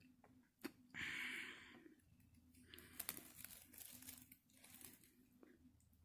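Close-up eating sounds from a mouthful taken off a big metal spoon: a sharp click about half a second in, a short loud rushing noise about a second in, then wet mouth and lip noises with a few sharp clicks.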